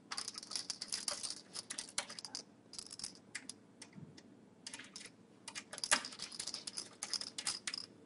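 Small hand screwdriver turning out screws from the steel drive-bay frame of a computer case: spells of rapid, light clicking and ticking, with short pauses between them.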